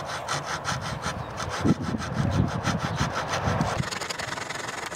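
Small fine-toothed hand saw (a mini pocket saw) cutting timber skirting board in quick, short, even strokes, about five a second, while a coping cut is back-cut into the mitred end for an internal corner. A low rumble runs under the strokes midway.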